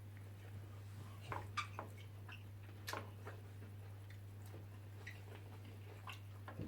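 Faint, irregular small clicks and smacks, a dozen or so spread unevenly, over a steady low electrical hum.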